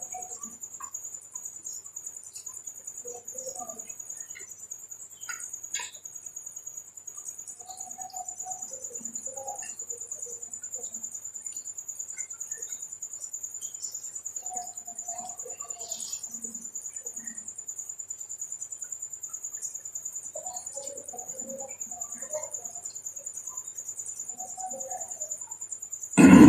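A man eating and chewing, with scattered mouth and utensil sounds, over a steady high trilling of crickets or other insects. A loud thump comes at the very end.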